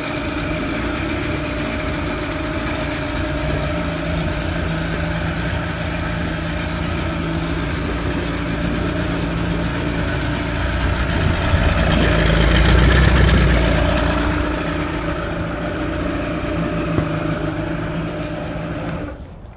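1987 Mercury 45 hp Classic 50 inline four-cylinder two-stroke outboard running in a water test barrel on its first runs after a carburettor rebuild. It idles steadily, picks up revs for a few seconds around the middle, settles back, and stops shortly before the end.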